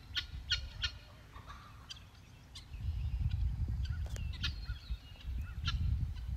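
A series of short bird calls, a cluster about a second in and another near the end, over a low rumble that comes in about three seconds in.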